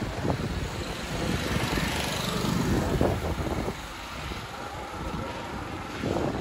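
A small motor vehicle's engine running close by, loud for the first three and a half seconds and then dropping away.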